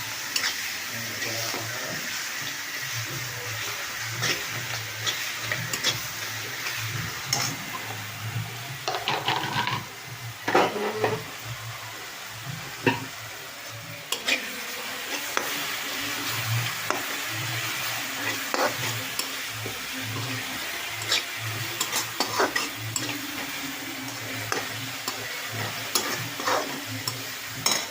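Green chillies, garlic and salt frying in hot oil in a kadhai, a steady sizzle, with a spatula stirring and scraping against the pan in frequent short clicks and scrapes.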